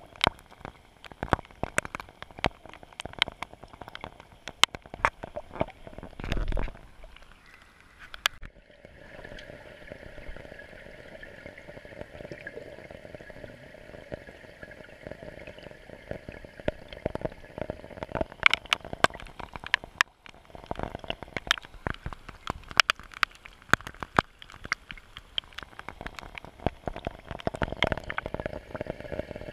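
Raindrops striking a swimming pool's surface, heard from underwater: a dense, irregular patter of sharp ticks and clicks, with a muffled low thump about six seconds in.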